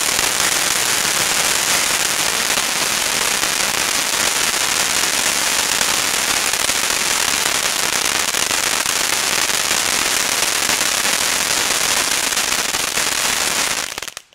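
Funke Goldcracker fountain, a ground firework fountain, burning with a steady dense crackle of many tiny cracker pops over the spark hiss. It cuts off abruptly near the end.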